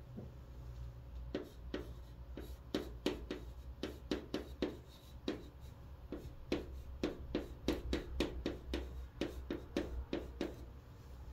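Chalk writing on a chalkboard: a quick, irregular run of short taps and scratches as letters are formed, over a steady low hum.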